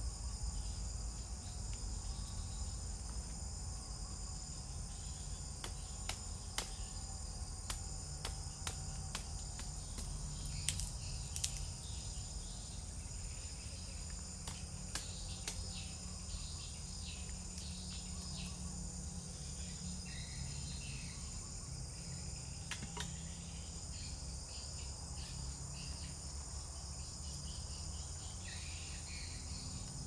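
A steady chorus of forest insects calling in high, unbroken tones, with scattered light clicks and knocks through it.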